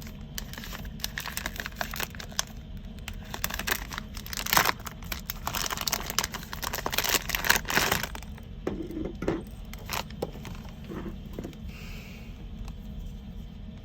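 Packaging being handled during an unboxing: crinkling and tearing with quick clicks and rustles, busiest for the first eight seconds, then only a few light knocks. A steady low hum runs underneath.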